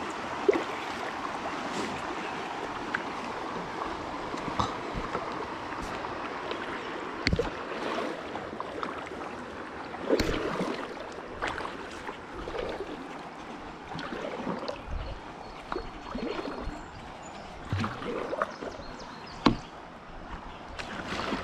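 Paddle strokes splashing in river water at an uneven pace, with water trickling and gurgling between them and a few sharp knocks.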